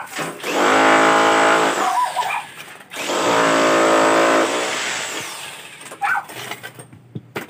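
Handheld electric drill running in two bursts of about a second and a half each; the second winds down slowly. A few light knocks follow.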